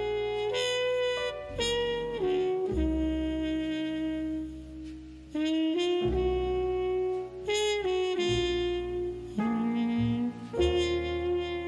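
Slow instrumental background music: a melody of long held notes over a low bass line.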